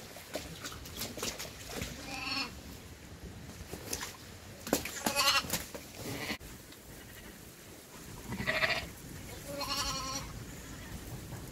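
Sheep bleating four times, a short call each time, with a few sharp knocks in between.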